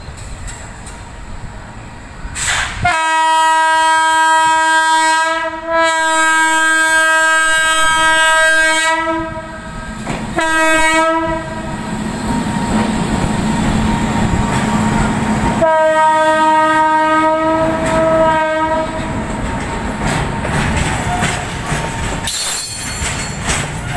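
WAG-9 electric locomotive sounding its air horn in four long blasts, the third one short, as it approaches and passes. Then the loaded covered goods wagons roll by with a steady wheel clatter over the rail joints.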